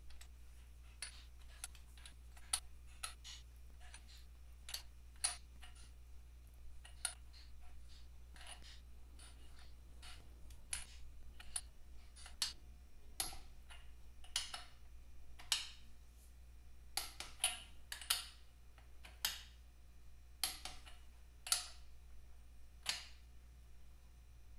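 Ratchet of a socket wrench clicking in single sharp clicks, irregularly about once a second, as the cylinder head nuts of a Vincent V-twin engine are tightened by hand. A steady low hum runs underneath.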